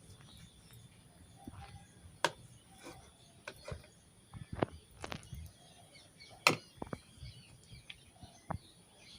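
Scattered sharp clicks and knocks of kitchen utensils and dishes being handled, the loudest about two, five and six and a half seconds in.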